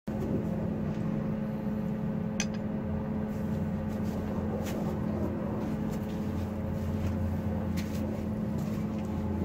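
Steady mechanical hum of a running machine, holding a few constant pitches, with a few faint ticks about two, four and a half and eight seconds in.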